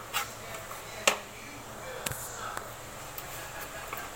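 Knife cutting the rind off a pineapple on a wooden cutting board: three sharp knocks about a second apart, with small crunching ticks in between as the blade goes through the skin.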